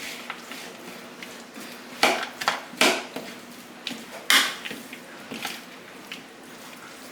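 A utensil knocking and scraping in a bowl as chicken salad is stirred and mashed, with scattered sharp clinks; the loudest come about two and four seconds in.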